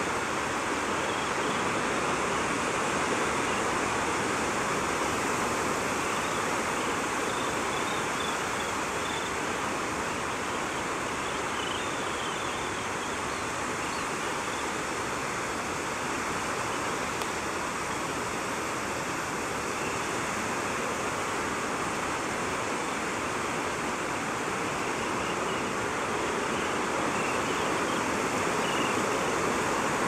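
Steady wash of surf on a beach, an even rushing noise with no breaks.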